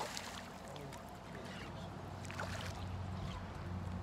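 A hooked largemouth bass splashing at the water's surface as it is fought on the line: a sharp splash at the start, then smaller splashes about halfway and again a little later.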